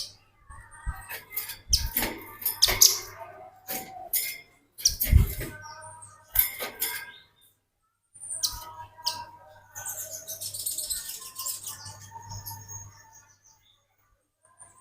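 Velvet-fronted nuthatches calling in a series of short, sharp chips and rattling bursts, with two brief pauses, over a faint low hum.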